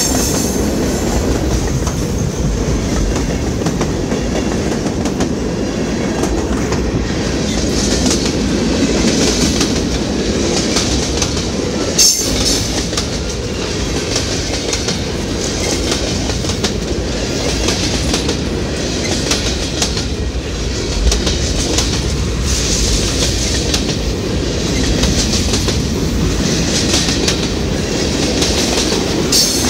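Freight cars of a Union Pacific freight train rolling past at close range: a steady heavy rumble of steel wheels on rail, with a running clickety-clack of wheels over rail joints and a high hiss that swells and fades every few seconds. A sharp clank about twelve seconds in.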